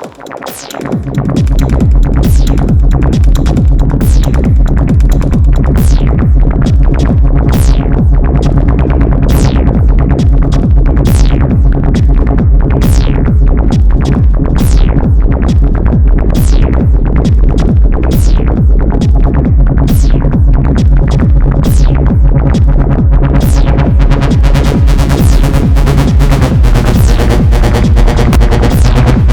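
Acid techno played on hardware: a Novation Circuit Tracks groovebox with Behringer Crave and Korg microKORG synthesizers. The bass and low end drop back in about a second in, then a steady driving groove runs, with falling high synth sweeps repeating every second or two. Near the end the top end fills in and gets busier.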